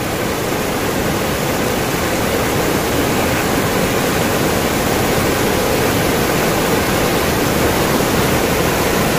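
Steady rush of fast-flowing river water, an even noise that holds constant throughout.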